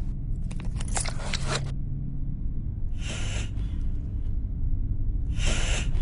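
A person coughing three times: a longer, broken burst about a second in, then two short single coughs about two and a half seconds apart, over a steady low hum.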